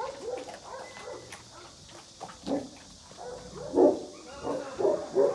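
Presa Canario (Canary mastiff) dogs in kennel runs barking: scattered short barks at first, then a quick run of louder barks from about two and a half seconds in, loudest near four seconds.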